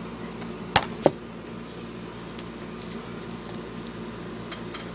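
Two sharp clicks from a plastic DVD case being handled on a desk, close together about a second in, followed by a few faint handling ticks over a steady low hum.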